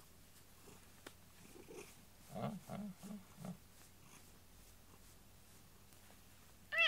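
A domestic cat makes four short, low calls in quick succession about two and a half seconds in. Near the end it starts a loud meow.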